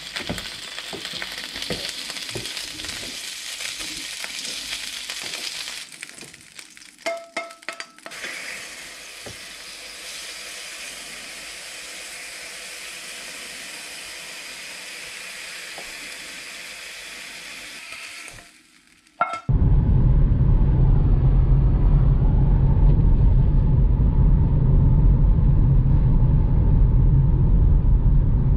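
Sausages and then bacon sizzling as they fry in a pan, with a few clicks and short beeps in a break between them. About two-thirds of the way in this gives way to a much louder, steady low rumble of a car driving, heard inside the cabin.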